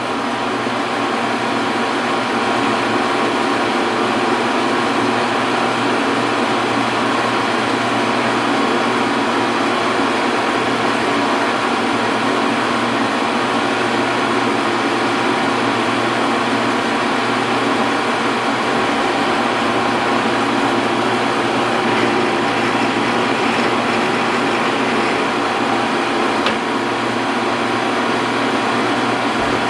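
Metal lathe running steadily: a continuous mechanical hum with several constant tones over it.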